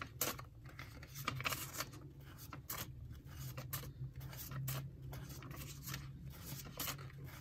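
Paper banknotes rustling and crinkling in short, irregular handling sounds as cash is picked out and sorted for stuffing into a budget envelope.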